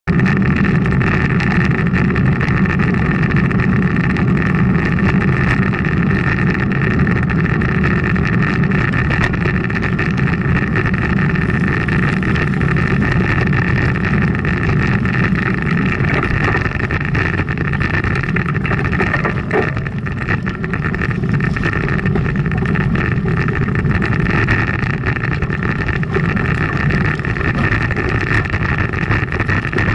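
Steady rush of wind on a bicycle-mounted camera's microphone, mixed with the rumble and continual rattle of road bike tyres over rough, broken gravel road.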